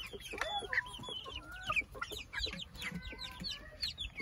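Hens clucking among many young chicks peeping in quick, high chirps that fall in pitch.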